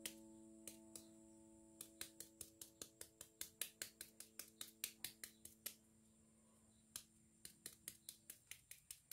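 Knife paring the skin off a firm, unripe mango in quick short strokes, each stroke a faint crisp click, about four a second, with a break of about a second after the middle. A held background-music chord fades out under the strokes.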